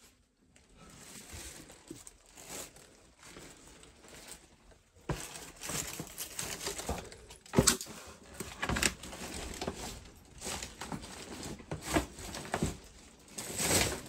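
Rustling and crinkling with scattered knocks. It is quieter for the first few seconds, then busier from about five seconds in, with the sharpest knocks about halfway through and just before the end.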